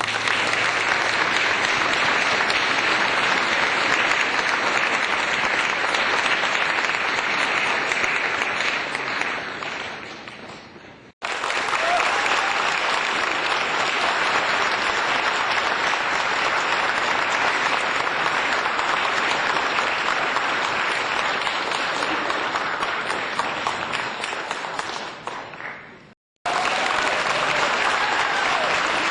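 Crowd applause: dense, steady clapping from many hands. It comes as three separate clips, the first two fading out, with brief silent breaks about eleven and twenty-six seconds in.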